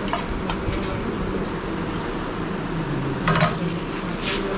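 Steel ladle and steel serving plates clinking as curry is dished out, with two light clinks in the first half second and a louder clatter a little past three seconds, over a steady background hum.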